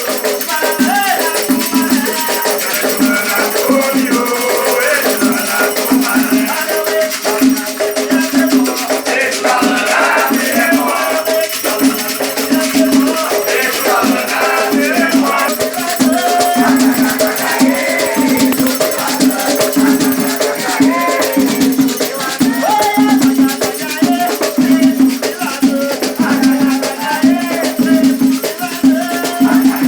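Batuque ceremonial music: a steady drum beat and shaken rattles, with voices singing over them.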